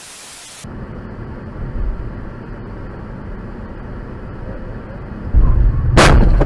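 A half-second burst of static hiss, then steady road noise of a car driving, picked up by its dash cam. About five seconds in a loud low rumble starts, and a moment later comes a loud crash as the car collides with another vehicle.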